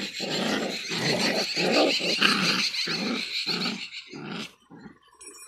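Small dogs fighting and growling, a rapid string of rough growls that stops about four and a half seconds in.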